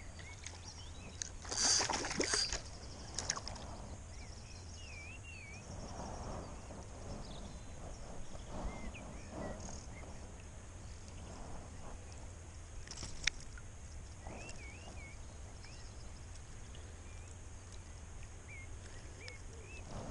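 A hooked perch splashing at the surface as it is swung out of the water, followed by soft handling noise. Birds chirp now and then, and there is one sharp click about thirteen seconds in.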